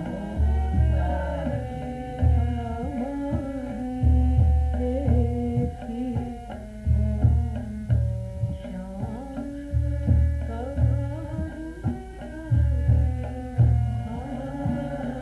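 Indian devotional bhajan music: a hand drum, likely tabla, beats deep bass strokes about once a second under long held melody notes. A voice sings at moments near the start and again past the middle.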